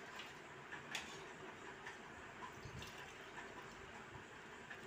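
Faint, steady background hiss with a soft click about a second in and a faint low thud a little later.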